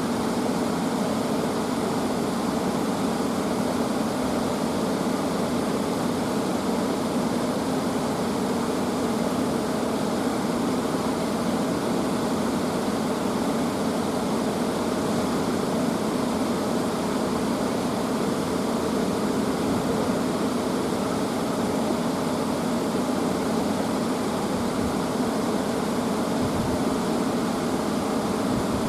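A steady, even rushing noise at a constant level, with no rhythm and no sudden sounds.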